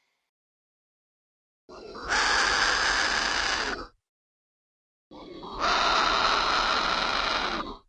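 Two Dilophosaurus sound-effect calls (a designed dinosaur vocalization), one after the other. Each is about two seconds long and starts soft, then quickly gets loud.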